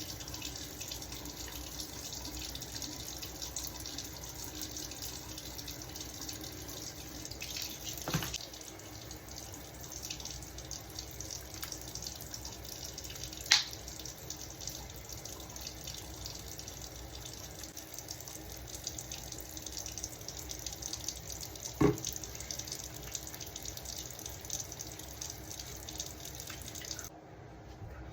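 Steady hiss of running water, like a tap, over a faint low hum, with three short sharp knocks, the loudest about halfway through. The hiss cuts off near the end.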